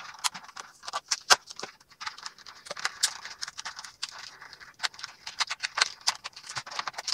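Clear plastic blister packaging of a toy accessory set being handled and opened: irregular crinkling and sharp clicks of thin plastic, with the small plastic pieces inside knocking about.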